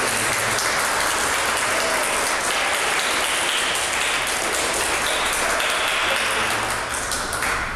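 Audience applauding in a steady round of clapping that fades out near the end.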